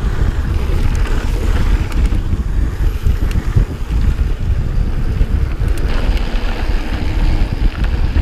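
Wind buffeting the action-camera microphone and a mountain bike's tyres rumbling over a hard-packed dirt trail during a fast descent, with a few faint clicks and rattles from the bike.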